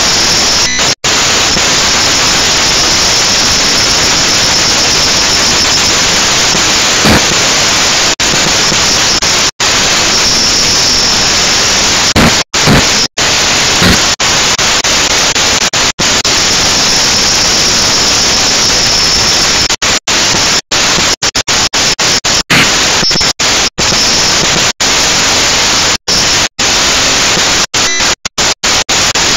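Loud, steady static hiss on the toy quadcopter's onboard camera audio, cutting out for split seconds many times, most often in the last ten seconds.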